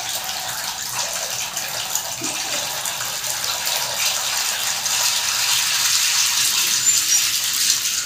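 Dry African Tall fodder maize seed pouring from a sack in a steady stream into a plastic bucket of water to soak. It makes a continuous rushing hiss that grows a little louder toward the end.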